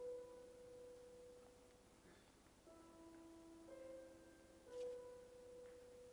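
Faint, slow background music: a few clean sustained keyboard notes, each held for a second or two.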